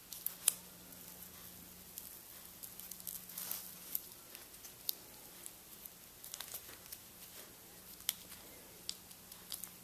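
Blue painter's tape being peeled off a plastic-dipped wire end and crumpled in the fingers: quiet, scattered crackles and ticks.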